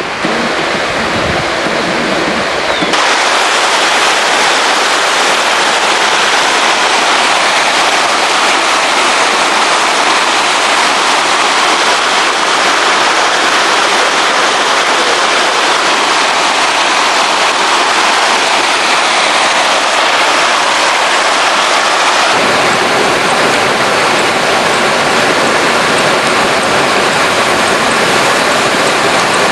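Loud, steady rush of flowing water, as of a stream running over rock, starting sharply about three seconds in; the sound grows fuller and deeper a few seconds before the end.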